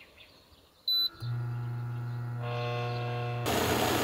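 Induction cooktop beeping once as its touch button is pressed, then running with a steady electrical hum and buzz under a stainless camping kettle. Near the end a loud even hiss of water heating in the kettle comes in over the hum.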